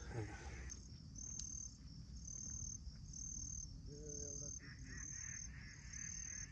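An insect chirping, cricket-like: a thin, high buzz in half-second pulses, repeating a little more than once a second.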